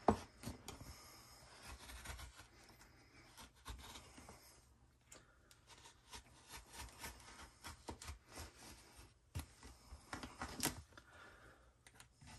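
A blade cutting and scraping through foil-faced sound deadener mat to open up a hole, with irregular faint scratching and crinkling and scattered sharp clicks, a cluster of louder ones a little after halfway.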